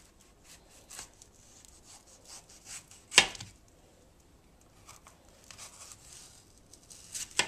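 Chef's knife slicing down the sides of a green bell pepper: a series of faint, crisp cuts through the flesh, with one louder sharp knock about three seconds in.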